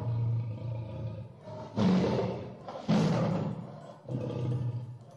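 Recorded lion roaring: several deep, rough roars in quick succession, a new one about every second or so.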